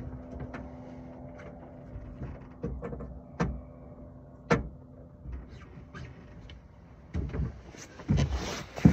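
A passing motorboat's engine giving a faint steady hum that fades out about halfway through, with scattered sharp knocks and clicks and a few louder thumps near the end.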